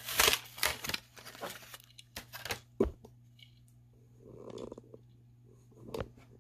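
Plastic blister packaging of a die-cast toy car being torn and crinkled open, with sharp crackles and clicks over the first few seconds. A softer rustle follows, and a single light click comes near the end.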